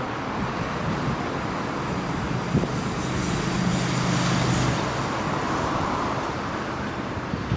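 A motor vehicle passing on a nearby road: its engine hum swells about two seconds in and fades away after about five seconds, over steady traffic noise.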